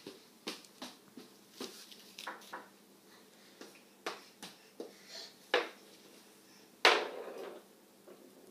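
Irregular light taps and knocks on a hardwood floor from a toddler's steps and hands and a small ball, with one louder knock about seven seconds in.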